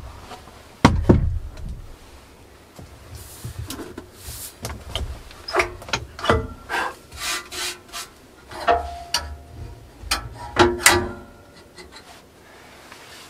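A heavy wooden thump about a second in as a hinged plank tabletop folds down. Then a run of knocks, scrapes and light metal clanks from a sheet-metal stovepipe being handled at a wood stove, two of them ringing briefly near the end.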